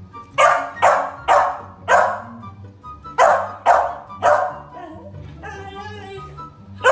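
Small dog barking: seven sharp barks in two quick runs, four and then three, over background music.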